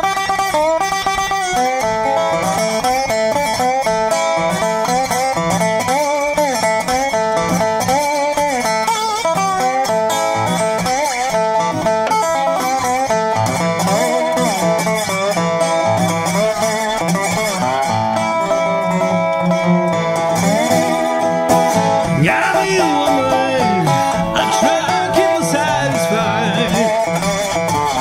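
Acoustic blues tune played on guitar, with notes bending and sliding about three-quarters of the way in.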